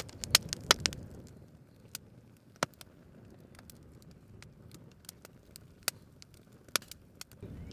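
Campfire of burning wood crackling: irregular sharp pops and snaps over a low hiss, the loudest pops in the first second.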